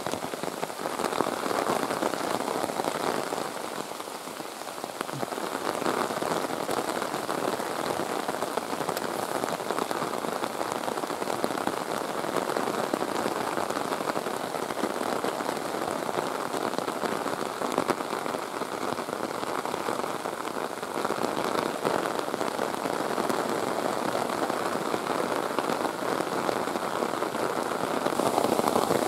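Heavy rain falling steadily on forest foliage and ground, a dense, even patter of drops.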